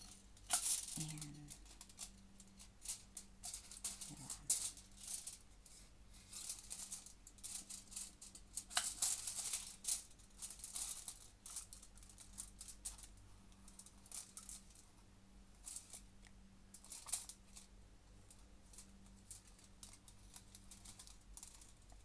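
Hands peeling a ripe cooking banana with a knife on crumpled aluminium foil: irregular crinkling of the foil and scraping and tearing of the peel, over a faint steady hum.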